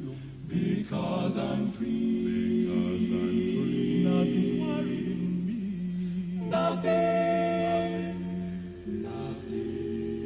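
Male a cappella vocal ensemble of six voices singing held chords with no clear words, moving to a new chord about six and a half seconds in.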